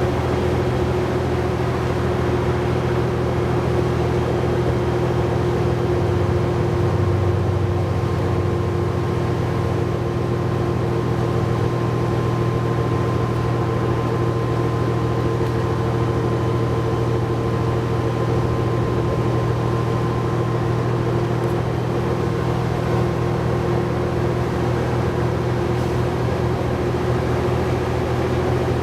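A New Flyer D60LFR articulated bus under way, heard from inside: its Cummins ISL9 diesel engine and Allison B500R transmission holding a steady engine speed, with road noise and a faint steady whine. The pitch stays level throughout, with no gear changes.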